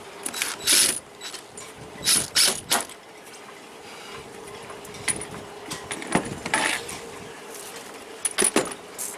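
Small metal hardware being handled: a scattered series of short clicks and clatters, with a faint steady hum underneath.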